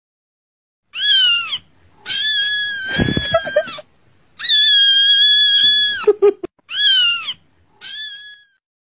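Kitten meowing loudly, a cat-meme sound clip: five high calls, short falling ones about a second in and near the end, and two long held cries in the middle. A brief low rumble comes under the first long cry.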